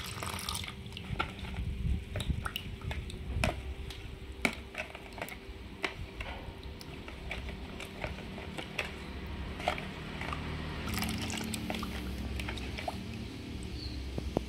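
Liquid poured into a plastic bowl at the start, then a metal spoon stirring a runny egg and limewater mixture, with scattered light clicks of the spoon against the bowl.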